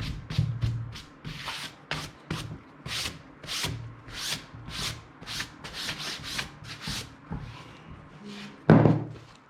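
Quick scrubbing strokes by hand on a car seat part, about two to three a second, wiping dirt off it. One thump comes near the end.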